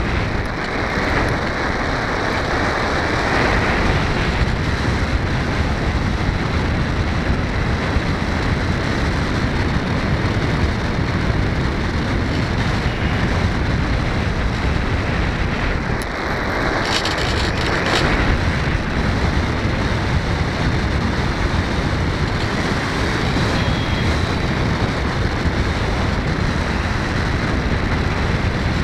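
Steady rush of wind buffeting the onboard camera of a foam FPV model plane in flight, with a short patch of harsher hiss about two-thirds of the way through.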